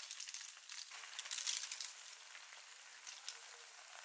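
Cooked snails in their shells tipped into a pot of hot oil with fried onions and garlic: shells clattering against each other and the pot while the oil sizzles, loudest about a second and a half in.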